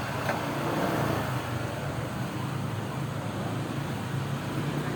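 Steady background noise of road traffic, an even rumble and hiss with no distinct events.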